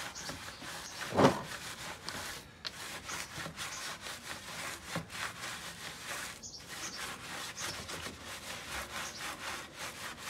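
A detail brush scrubbing a soapy alloy wheel, bristles rubbing in quick, short, rhythmic strokes, with a single loud knock about a second in.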